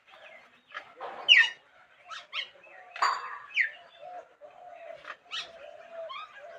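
Birds calling: a string of short chirps and quick down-sweeping notes, the loudest about a second and a half in, with lower held notes through the second half.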